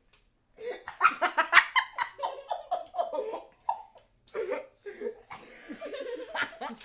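A woman and a teenage boy laughing loudly together in pulsing, breathy bursts, starting about half a second in.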